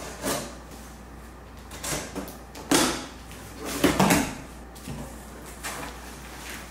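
Cardboard shipping box being opened: a box cutter slits the packing tape, the cardboard flaps are folded back and bubble-wrapped items are handled, in about five short scraping and rustling bursts.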